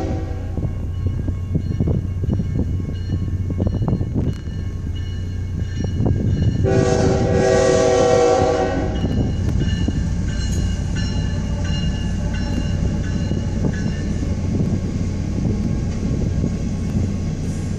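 Freight locomotive horn sounding a chord, briefly at the start and again for about two seconds around seven seconds in, which is the loudest moment. Grade crossing bells ring steadily and a low rumble from the approaching train runs underneath.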